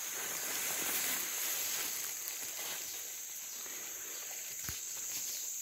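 Steady high-pitched drone of jungle insects, with faint rustling and steps through undergrowth beneath it.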